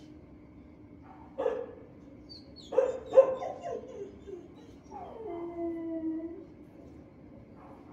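A dog in a shelter kennel gives a few short barks, about one and a half and three seconds in. Then it gives one long cry that falls in pitch.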